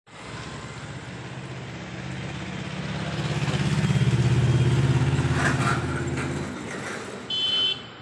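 A motor vehicle's engine, low and rapidly pulsing, grows louder to a peak about halfway through and fades out about six and a half seconds in, like a vehicle passing close by. Near the end comes a short, high-pitched tone lasting under half a second.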